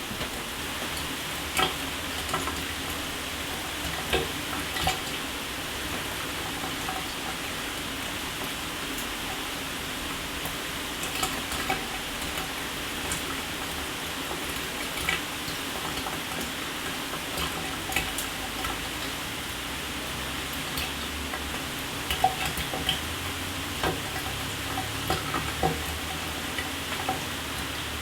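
Shower running: a steady hiss of water spray, with scattered sharper splashes and drips at irregular moments.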